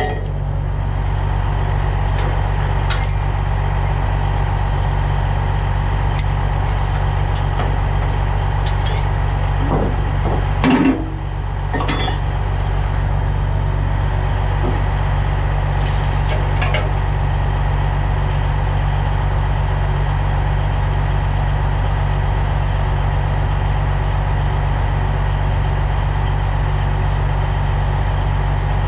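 Heavy diesel truck engine idling steadily, with a few light metallic clinks and one brief louder noise about ten seconds in.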